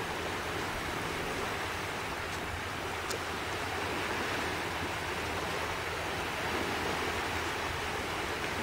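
Steady wash of surf and wind on a beach, an even noise with no distinct events, over a faint low steady hum.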